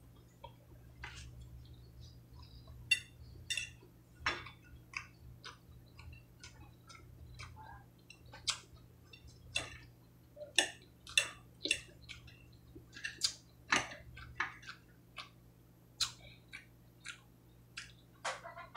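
Close-up chewing of lettuce salad: irregular crisp crunches and wet mouth clicks, a few to several a second, some sharper than others.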